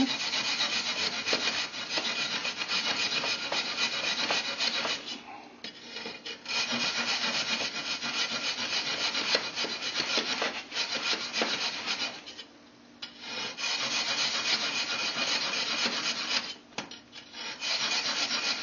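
Hand hacksaw cutting a groove into soft firebrick, rapid back-and-forth rasping strokes. The sawing stops briefly three times, about 5, 12 and 17 seconds in.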